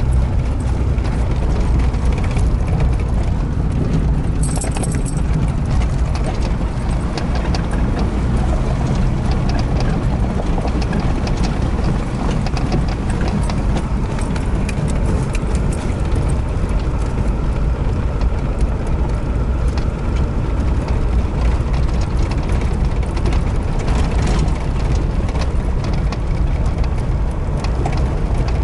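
Inside a vehicle driving on an unpaved gravel road: a steady low engine and road rumble, with tyres crunching over gravel and frequent short clicks and rattles throughout.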